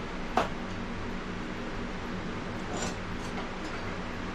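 Steady low mechanical hum from shop equipment, with one sharp knock about half a second in and a few faint clinks a couple of seconds later: tools being handled off to one side while someone searches for a rasp.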